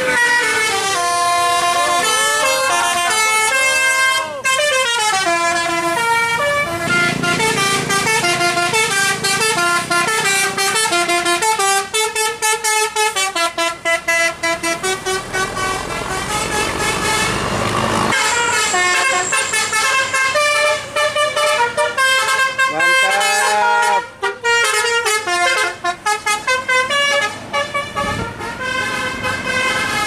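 Tour buses' multi-tone telolet basuri musical horns playing long, fast melodies of stepping notes, with quick sliding swoops between them. A bus's diesel engine runs underneath, most clearly in the middle.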